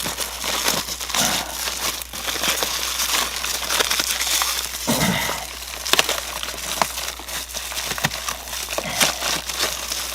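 Inner liner of an insulated flexible air duct crinkling as it is handled and its wire coil is folded back: a continuous crackle broken by many sharp clicks.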